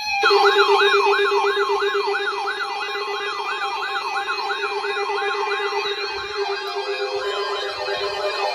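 Electronic siren-like alert tone of an emergency alert broadcast: a swooping tone that repeats about twice a second over a steady lower tone, starting abruptly. Near the end the swoops fade and a steadier tone takes over.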